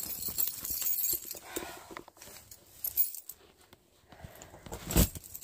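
A bunch of keys jangling and clicking on a keyring as a key is fitted into a lever-handle door lock, with a louder click about five seconds in.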